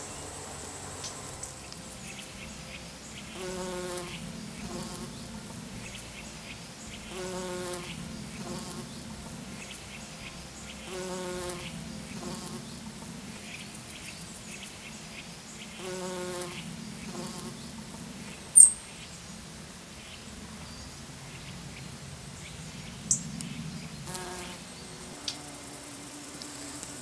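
Flying insects buzzing steadily. A short pitched sound with overtones comes back about every four seconds, and a single sharp click partway through is the loudest moment.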